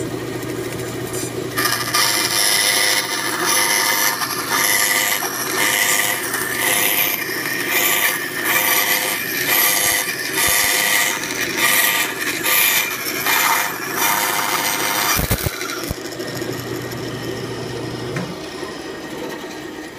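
Band saw running, its blade cutting around the edge of a wooden disc as the disc is turned on a circle jig's pivot, the cutting noise swelling and dipping about once a second. The cut stops about fifteen seconds in, and the saw's motor hum fades out near the end.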